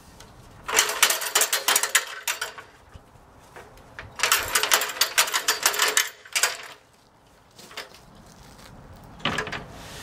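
A 24-foot extension ladder's fly section being hauled up by its rope: the rung locks and rails rattle and click rapidly in two runs of pulling, each about two seconds long. A single knock sounds near the end.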